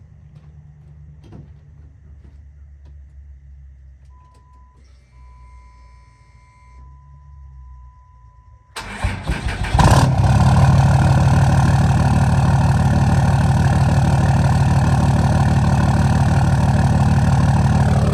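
A 2006 Ram 2500 pickup starting, running through a freshly welded 6-inch exhaust tip. A steady electronic chime sounds for a few seconds; then, about nine seconds in, the starter cranks briefly, the engine catches, and it settles into a loud, steady idle.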